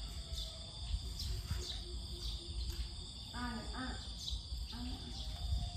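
Outdoor ambience: a steady high drone of insects with scattered bird chirps over a low rumble, and a short voice about three and a half seconds in.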